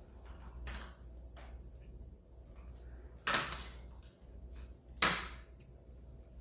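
Small clicks and scrapes of tools and hardened sugar candy being handled on a stainless steel tray, with two louder knocks about three and five seconds in.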